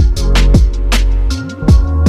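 Background electronic music with a deep bass and a regular drum beat.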